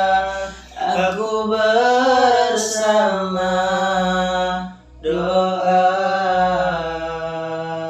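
A voice singing long, drawn-out wordless notes in a chant-like style, with slight wavering in pitch; one long held phrase breaks off about five seconds in and a second begins.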